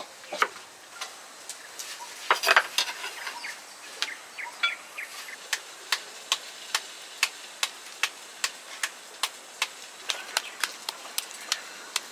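Kitchen knife cutting kernels off a fresh white corn cob, the blade tapping sharply on the chopping board. The taps come irregularly at first, then settle into a steady beat of about two a second.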